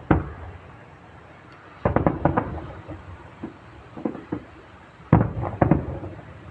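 Fireworks display: aerial shells bursting in loud bangs. A single bang comes at the start, then a quick volley of four or five about two seconds in, a couple more around four seconds, and another volley about five seconds in, each bang trailing off in echo.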